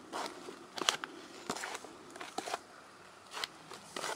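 Hands mixing a dry spod mix of Vitadin and brown crumb inside a paper sack: irregular rustling and crunching, with sharper crackles about a second in and near the end.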